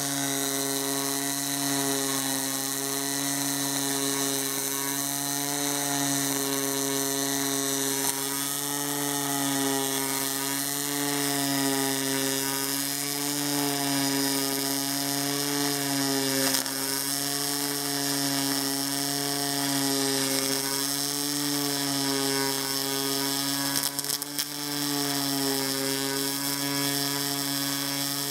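Stel Max 403S pulse MIG welder arc laying a continuous bead on aluminum pipe with 1.2 mm ALSi5 wire under straight argon: a steady, loud buzz that wavers slightly in pitch. It falters briefly about four seconds before the end and stops as the weld finishes.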